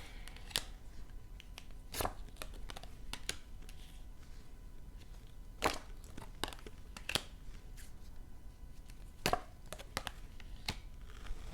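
Tarot cards being handled: irregular light taps and snaps as cards are shuffled and laid down on a table, with several sharper clicks spread a second or two apart.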